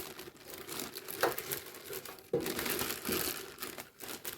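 Large plastic freezer bag crinkling and rustling as it is pushed in to line a metal ammo can, with a couple of knocks.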